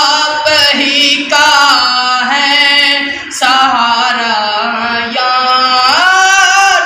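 A man singing a naat without accompaniment: long held notes that bend and turn in pitch, with short breaks for breath between phrases.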